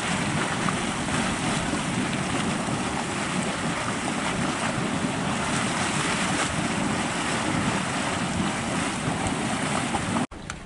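Steady rushing noise of Yellowstone's Mud Volcano, a steaming mud pool, cutting off abruptly near the end.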